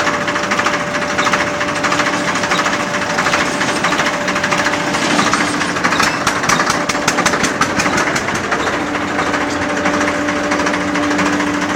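Farmtrac 60 tractor's three-cylinder diesel engine idling close by, a steady rapid clatter that grows sharper and more clicking for a couple of seconds in the middle.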